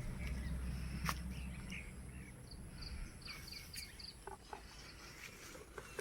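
Outdoor evening ambience: a low rumbling noise for about three seconds and a click about a second in, then a quick run of about eight short, high chirps from a small creature.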